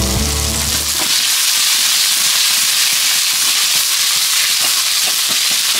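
Food frying in a hot pan: a loud, steady sizzle with scattered small pops of spattering oil. Background music fades out about a second in.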